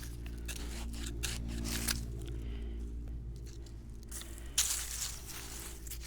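Weeds being pulled by hand from garden soil: irregular crunching and tearing of roots and dirt, with one sharper pull about two-thirds of the way in. A steady low hum runs underneath.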